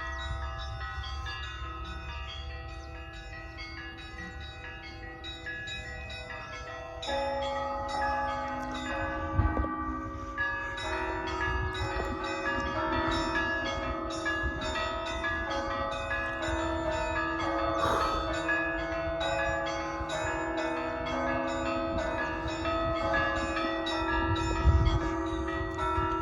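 Russian church bells ringing, several bells of different pitches struck over and over in a running pattern, growing fuller and louder about seven seconds in, with a low rumble underneath.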